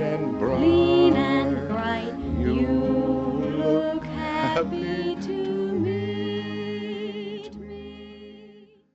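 Music with a voice singing long, held notes with vibrato, fading out near the end.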